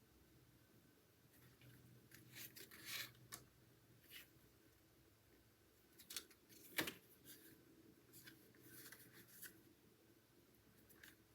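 Paper and card stock being handled: scattered soft rustles and scrapes, with one sharp tap a little past the middle.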